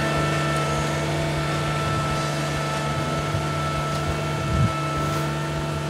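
Compact tractor engine running at a steady, even speed while pulling a single-bottom plow through heavy clay sod.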